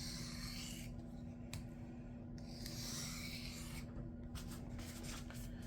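Knife edge drawn in a few slow, very light strokes across a 400-grit diamond sharpening plate, a soft hissing scrape with short pauses between strokes: deburring passes at a slightly raised angle to knock the burr off the apex.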